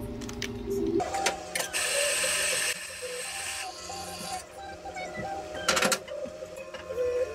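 Hot water flushing from a Conti espresso machine's group heads with a hiss, starting about two seconds in, followed a few seconds later by a brief metallic clatter.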